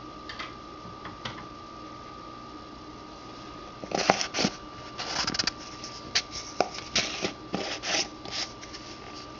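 A run of rustling and clicking handling sounds, starting about four seconds in and lasting about four seconds, over a faint steady high-pitched tone.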